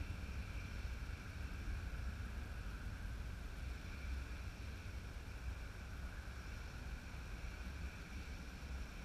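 Distant jet aircraft engines: a steady low rumble with a faint high whine on top, easing slightly.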